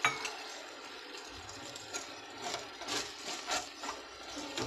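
Wooden spatula scraping and stirring a sauce-coated onion and green chilli mixture in a metal pan, with repeated scraping strokes about two a second from about two seconds in. A sharp knock sounds right at the start.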